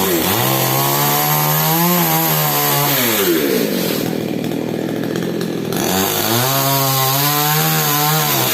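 Falcon mini chainsaw engine revved up twice, each time holding at high revs for two to three seconds, then dropping back to a rough idle between. The high-rev stretches are the saw cutting into mango wood.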